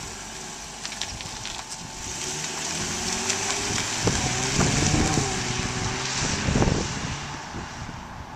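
Car engine pulling away and accelerating, its pitch rising and falling as it revs, loudest about halfway through and then fading as the car moves off.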